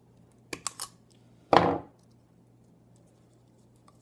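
Pliers snipping a tie wire off a plastic tube trap and being handled: three small sharp clicks, then one louder clunk about a second and a half in.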